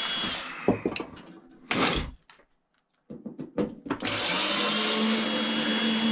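Power drill running, stopping, then running again for a few seconds, with clicks and a knock of handling in between.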